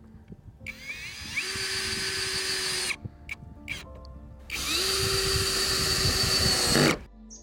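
Cordless drill-driver driving screws through corrugated roofing sheet into wood, in two runs of about two seconds each with a short pause between.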